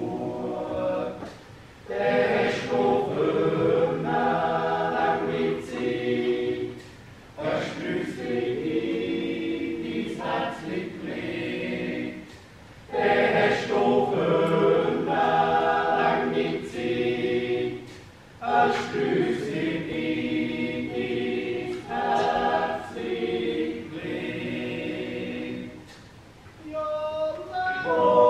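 Swiss male yodel choir singing a Jodellied a cappella in several parts, with sustained chords. The phrases are separated by short breaks every five or six seconds.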